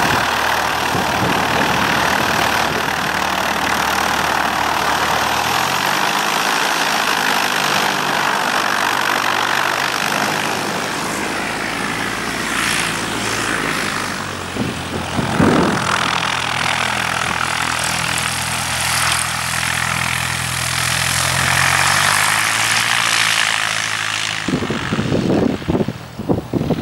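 A light aircraft's piston engine and propeller run steadily, their pitch stepping up about five seconds in and easing off in the last few seconds. Gusts of wind on the microphone come in near the end.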